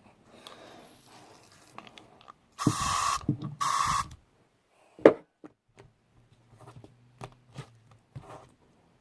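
Two short hisses of an Air Wick aerosol air-freshener spray, added to sticky slime, followed by a sharp knock and soft sticky handling sounds of the slime.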